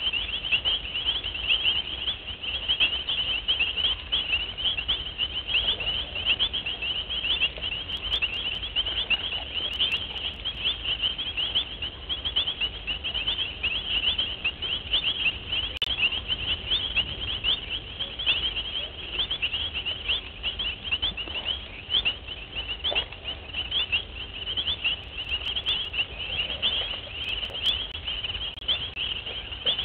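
Dense night chorus of rapid, high-pitched chirping from many small calling animals, unbroken and steady.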